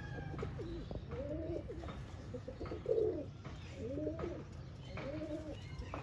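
Domestic pigeons cooing: a run of about six low coos, roughly one a second.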